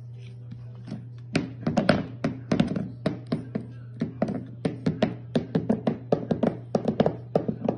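A rapid, irregular series of taps and knocks, several a second, beginning about a second and a half in, over a steady low hum.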